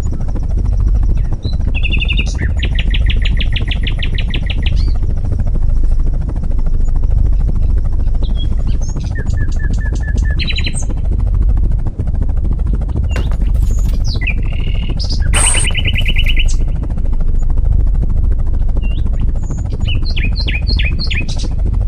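Small birds chirping and calling, with two rapid trills of a few seconds each and some short chirps near the end, over a steady low rumble.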